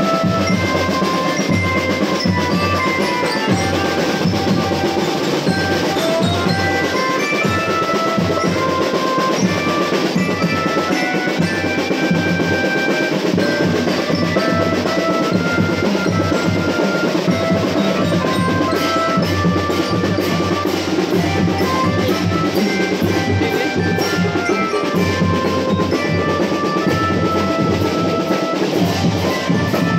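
Drum band playing: snare and bass drums keep up a dense marching beat while a glockenspiel (marching lyra) carries the melody in short, bell-like notes.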